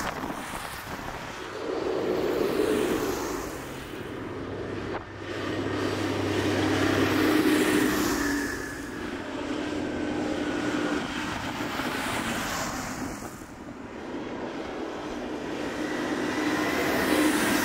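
A procession of large farm tractors driving past one after another: diesel engines running and tyres hissing on the wet road. The sound swells as each tractor nears and fades as it passes, three times over.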